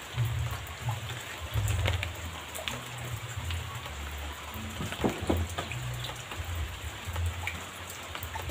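Light rain pattering steadily, with scattered faint ticks and intermittent low rumbles.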